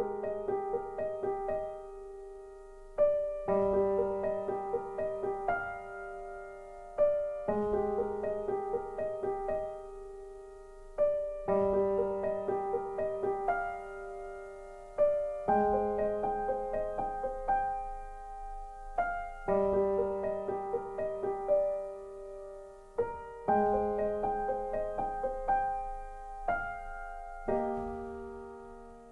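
Slow, gentle piano music: soft phrases of notes, each opened by a struck chord about every four seconds and then dying away.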